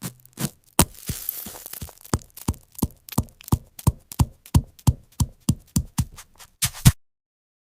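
Candy being cracked and crushed: a steady run of sharp cracks and knocks, about three a second, with a crunching patch about a second in. It stops suddenly about seven seconds in.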